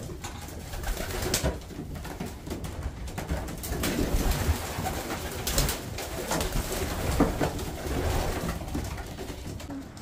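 Racing pigeons cooing, with scattered clicks, knocks and rustling throughout.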